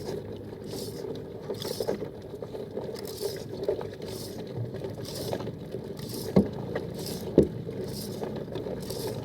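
Sounds aboard a small fishing boat: a steady low hum with a rough wash that swells about once a second, and two sharp knocks on the boat about six and seven seconds in.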